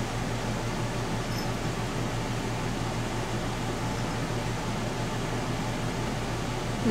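Steady low hum and hiss of room background noise, with no distinct events.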